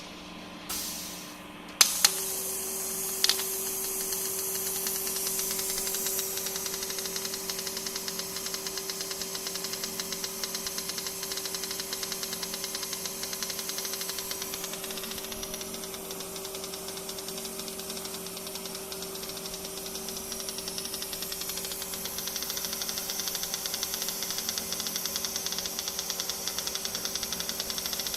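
Plasma arc welding torch: the arc strikes with a sharp crack about two seconds in. It then burns steadily with a hiss, a constant hum and a fine, rapid crackle.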